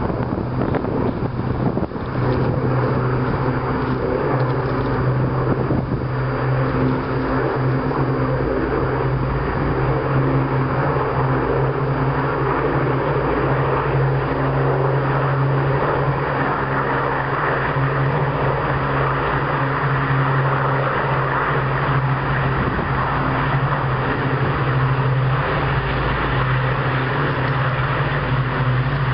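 Steady low drone of the piston aero engines of two Avro Lancaster bombers, each with four Rolls-Royce Merlin engines, flying in formation with two Spitfires and a Hurricane. The hum holds one pitch throughout.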